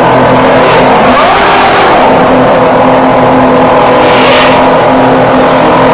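Formula 1 car engine running loud and steady at a held pitch, with two brief swells of rushing noise, about a second in and again about four seconds in.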